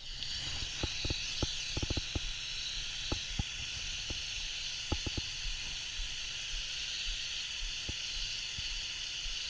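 Water mist spraying out in a steady, even hiss, with a scatter of short knocks and taps in the first five seconds.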